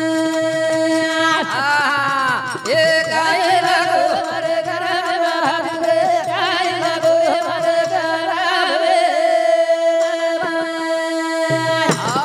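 Banjara devotional folk music: a steady held drone with a wavering melodic line and sliding, vocal-like notes over it, backed by a dholak hand drum and small hand cymbals. The low drum layer drops out for a few seconds in the second half, then comes back.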